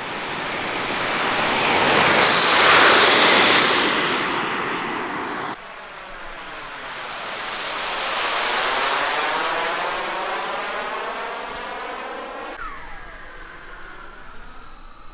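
Turbojet engine of a large RC model jet, rated at 180 N thrust, running at high power, growing louder and fading as the jet takes off and flies past. The sound breaks off abruptly about five and a half seconds in, swells again as it passes a second time, and fades near the end to a faint falling whistle.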